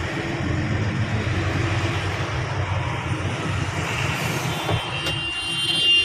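Inside a truck cab: the lorry's diesel engine runs with road noise as it slows in traffic. A high, steady tone joins in for the last second and a half.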